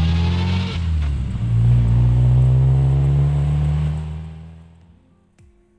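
Car engine accelerating, the pitch rising and dropping once about a second in as it shifts up a gear, then rising again before it fades away.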